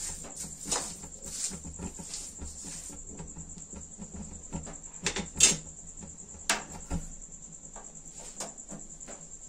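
A steel spoon scrapes and knocks against a metal kadhai as a thick amla paste and sugar are stirred, with a few sharper clinks of metal on metal about five to seven seconds in. A steady, high-pitched pulsing tone runs underneath.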